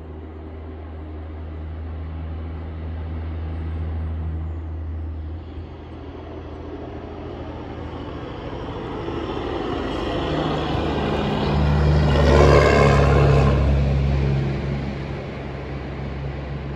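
A heavy coal truck passing on the road: its diesel engine drone builds, loudest about twelve to thirteen seconds in with engine and tyre noise, then fades.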